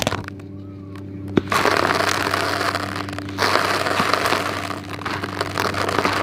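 Dry sand-cement chunks crushed and crumbled by hand, the gritty crumbs crackling as they break and fall into a bowl. A sharp crack about a second and a half in, then dense crunchy crackling.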